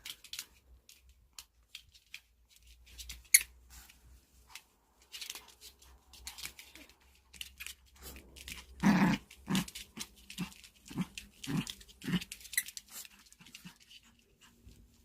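Pomeranian puppy playing with a toy: scattered clicks and taps, then about nine seconds in a run of six short, low growls about half a second apart.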